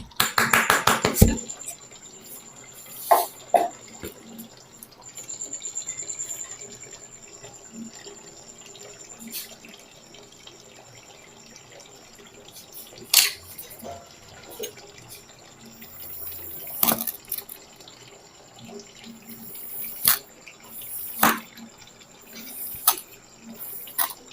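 Purple kinetic sand being cut and scooped with a melon baller: soft crumbling and crackling, with a quick run of clicks at the start and a few sharp clicks spread through the rest.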